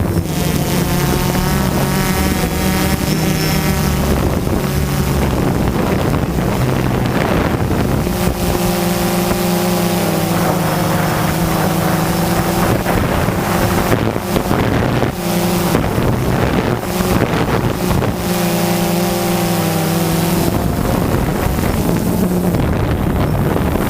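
DJI Phantom 2 quadcopter's motors and propellers in flight: a steady buzzing hum whose pitch shifts up and down as the motor speeds change, with wind rushing over the microphone.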